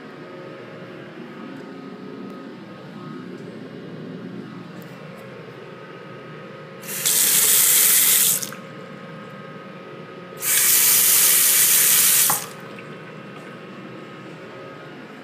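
Sink faucet running water into a porcelain basin twice, first for about a second and a half, then for about two seconds, each time turned on and shut off abruptly.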